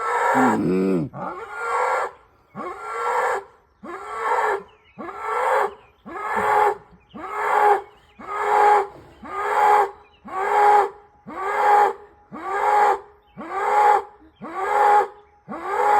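Cow calling over and over in short, evenly spaced calls, about one a second, each one rising in pitch and then holding.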